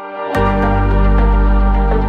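Intro background music: a sustained chord swells up, then a deep bass and sharp percussive hits come in about a third of a second in.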